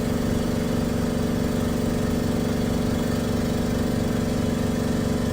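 Hydrafacial machine's spray mist gun running: the air pump hums at a steady, constant pitch while the mist hisses.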